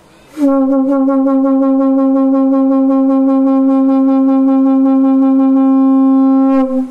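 Large conch shell (shankh) blown in one long steady note of about six seconds with a fast flutter running through it, starting just after the beginning and breaking off near the end. It is the first of the shell's demonstrated tunes, played once more.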